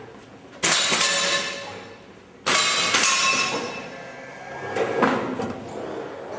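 Break-barrel rifle shooting: three sharp cracks, the last two about half a second apart, each followed by about a second of metallic ringing.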